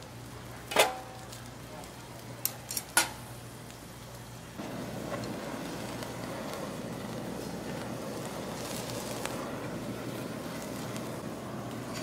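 Metal tongs clink a few times against a flat-top griddle where pork belly is frying. About four and a half seconds in, a handheld kitchen blowtorch starts and runs with a steady hiss, searing the meat.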